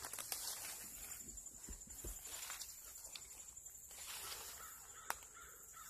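Insects trilling steadily at a high pitch, with faint rustling steps on leaf litter and a single sharp click about five seconds in.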